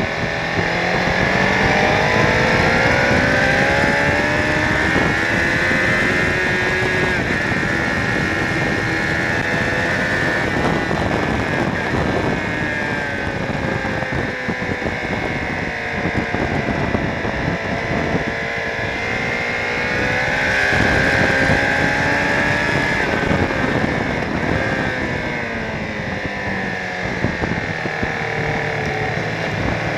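Honda CBR1000RR Fireblade's inline-four engine under hard acceleration and braking on track, its pitch climbing through the gears and falling again several times. Heavy wind rush over the microphone runs under it.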